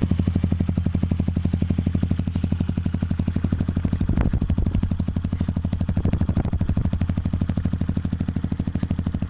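Yamaha WR155's 155 cc single-cylinder engine idling steadily through an aftermarket Norifumi exhaust pipe, with an even, rapid exhaust beat.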